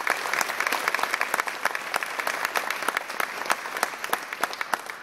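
Audience applauding at the end of a song: dense clapping from many hands.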